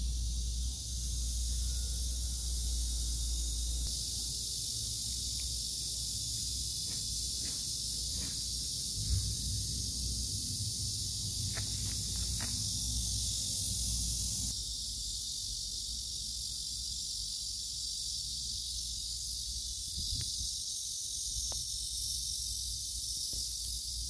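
Cicadas singing in a steady, high-pitched chorus. A low rumble runs under it for the first few seconds, and a few faint clicks come around the middle.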